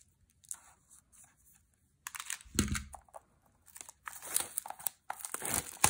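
Clear plastic wrapping crinkling and tearing as it is pulled off a wrapped notebook by hand, starting about two seconds in, with a dull thump of handling near the start of it.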